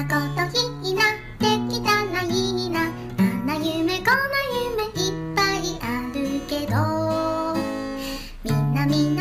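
Background music: a song with guitar and a high singing voice.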